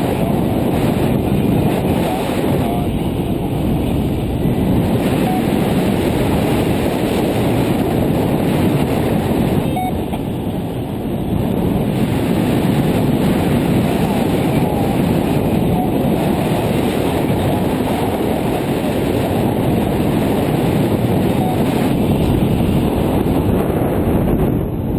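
Wind noise from the airflow of paraglider flight on a GoPro microphone in an open housing: a steady, loud rumble, easing briefly about ten seconds in.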